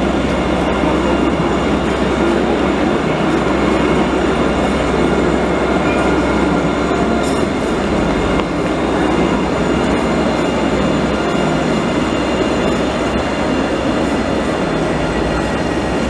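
Alstom Citadis light-rail tram close by, a steady loud noise with a few faint steady high tones over it.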